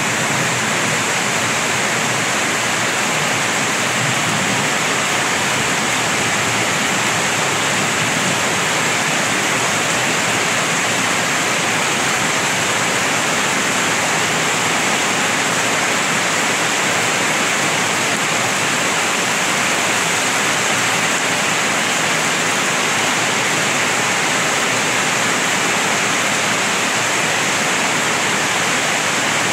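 Heavy typhoon rain pouring steadily onto a wet paved street, a constant loud hiss.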